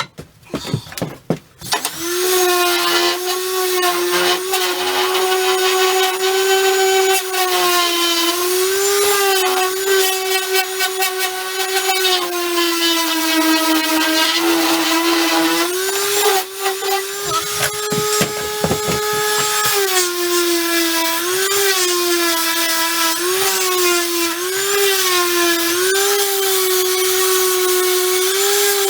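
Electric sander starting up about two seconds in and running steadily on wood, its motor pitch dipping again and again as it is pressed down and loaded. A few knocks of handling come before it starts.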